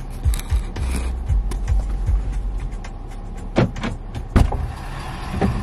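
Inside a pickup truck's cab: a steady low engine idle, a brief power-window motor whir about a second in, then sharp clicks and knocks of the door handle and latch as the door is opened, the loudest knocks a little past halfway.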